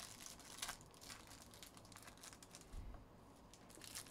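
Faint crinkling and ticking of foil trading-card pack wrappers being handled, with a soft low bump near three seconds in.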